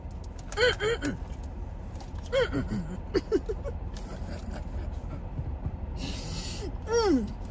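A woman's short wordless vocal sounds, several brief hums or chuckles, each falling in pitch, with a breathy exhale about six seconds in.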